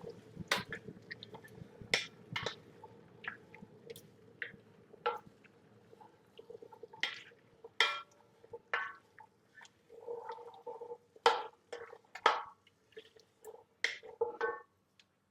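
Drained chickpeas being added to a pan of softened vegetables and stirred: irregular clicks and knocks of the spoon and chickpeas against the pan, over a faint steady hum.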